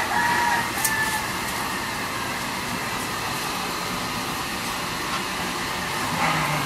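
Steady background noise, with a dog's short low growl about six seconds in.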